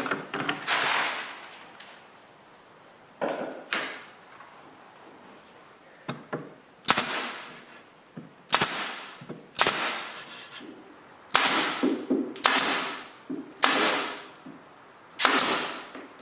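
Pneumatic headless pin nailer firing pins into glued wood, about nine sharp shots at irregular intervals, each trailing off briefly, with a few fainter knocks between them.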